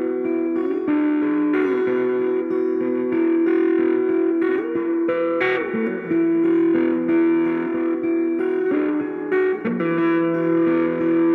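Epiphone Les Paul electric guitar played through a 90s Sovtek reissue Electro-Harmonix Big Muff Pi fuzz pedal into an Ampeg G212 combo amp: held, sustaining fuzz notes in a slow melodic line, changing every second or so, with slides up and down between some notes.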